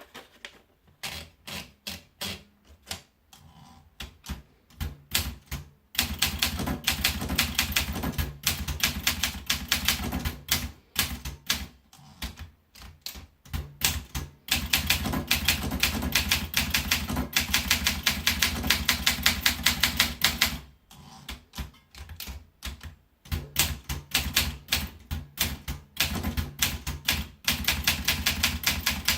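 Olympia SM8 manual portable typewriter being typed on, its typebars striking the platen. A few scattered strokes first, then fast, continuous typing, with a short break about two-thirds of the way through.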